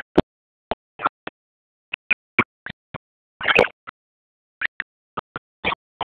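Crowd noise and voices broken up by audio dropouts from a poor phone video stream: about twenty short scraps of sound, each a fraction of a second long, with dead silence between them. The longest scrap comes about three and a half seconds in.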